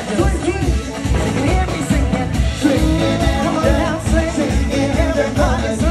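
Upbeat pop song with a singing voice over a steady beat, about two beats a second.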